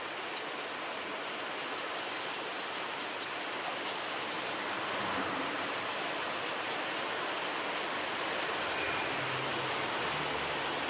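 A steady, even hiss with no distinct tool or engine sounds.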